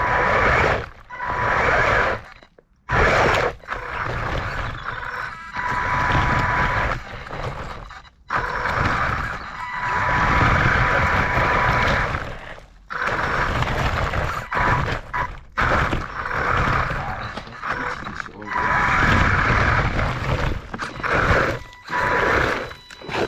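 Radio-controlled car running in repeated bursts of a few seconds, a rushing noise with a steady high whine, cutting off and starting again several times.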